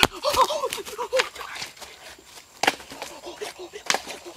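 A voice making a run of short, quick pitched sounds, then two sharp knocks about a second apart.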